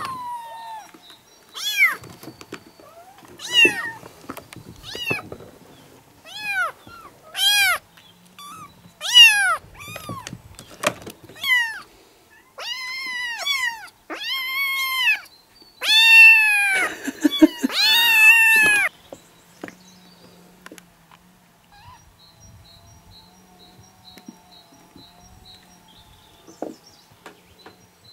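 A litter of 4-to-5-week-old kittens meowing, high arched meows one after another and sometimes several at once, most tightly packed about two-thirds of the way through. The meowing then stops, leaving only faint background sound for the last several seconds.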